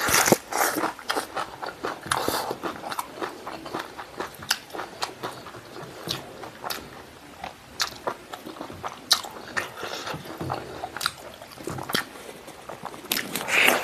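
Close-miked chewing of pork stomach and intestine with rice: irregular wet mouth clicks and smacks, thickest at the start and near the end.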